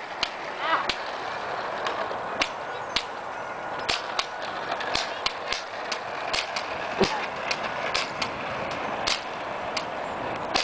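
Scattered sharp clicks and snaps, about one or two a second at irregular intervals, over a steady rustling hiss.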